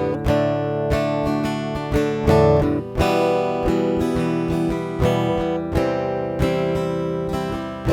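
Ovation acoustic-electric guitar strumming a chord progression, about one strum a second with the chords ringing on, heard through its OP30 preamp plugged in direct with the EQ, mid shift and pre-shape all engaged.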